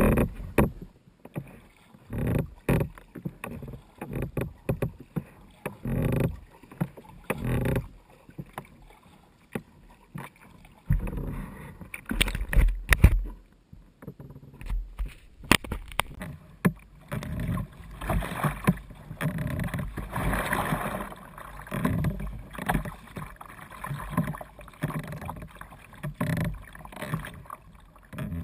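Kayak paddling: the paddle blades dipping and splashing into the water in repeated strokes, about one splash a second.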